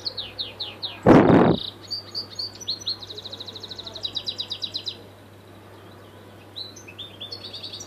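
Caged European goldfinch singing: quick twittering notes, then a fast, even trill of about ten notes a second that stops about five seconds in, and a few more notes near the end. About a second in, a brief loud rushing noise lasting half a second drowns everything out.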